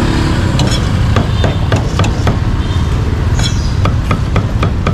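Cleaver chopping barbecued meat on a thick round wooden chopping block: a run of sharp knocks, about three or four a second, with a short pause past the middle, over a steady low hum.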